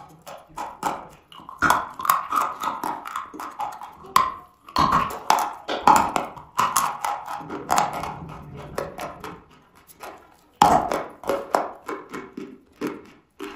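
Dry chalk being bitten and chewed close up: a rapid, irregular run of crisp crunches, with a couple of brief pauses.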